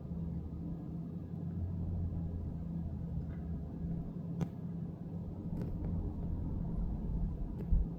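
Steady low engine rumble with a steady hum, and a few faint clicks about halfway through and near the end.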